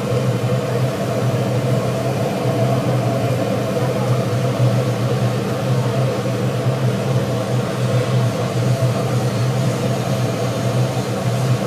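Biomass gasifier plant machinery running with a steady, even low hum that does not change.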